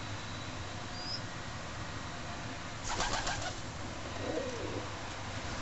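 Young feral pigeons: a brief rustling flutter of wings about three seconds in, then a short, soft, low call a second later.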